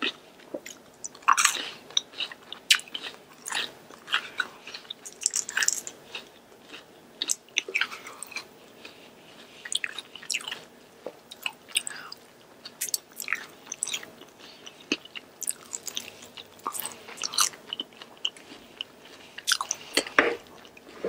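A person chewing and biting into Korean fried chicken, with irregular crunches and mouth clicks throughout.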